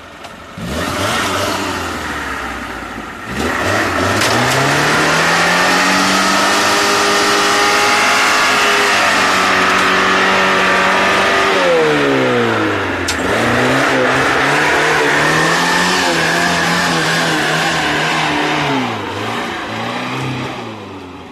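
Lada Niva engine revved hard and held at high revs while the 4x4 churns through deep mud. The revs climb in two long pulls, drop briefly midway, then ease off near the end.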